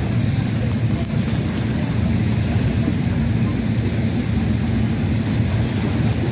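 Steady low rumble of wind buffeting the microphone beside open, choppy water.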